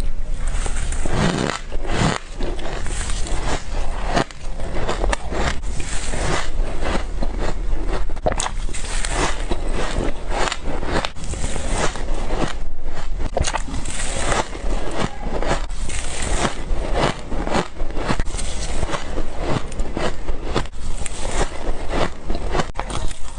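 Ice being bitten and crunched close to the microphone: one crackling, crunching bite after another, with sharp cracks throughout.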